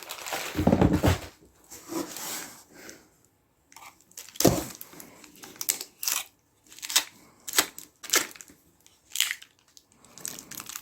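Plastic packaging being cut open with a knife and torn off, crinkling, with a string of sharp separate crackles after a low thud about half a second in.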